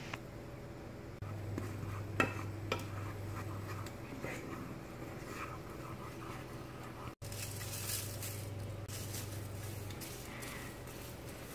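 A wooden spatula stirring and scraping in a nonstick frying pan while butter sizzles, with a few light taps of the spatula against the pan about two seconds in. A steady low hum comes and goes underneath.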